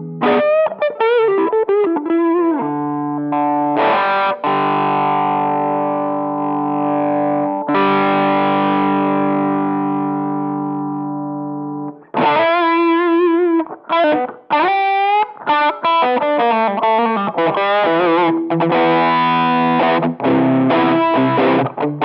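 Electric guitar through a Behringer UM100 Ultra Metal pedal, with high-gain metal distortion. Sustained chords ring out and change twice, then stop suddenly about twelve seconds in. Fast lead runs with string bends and vibrato follow, ending in quick repeated riffing.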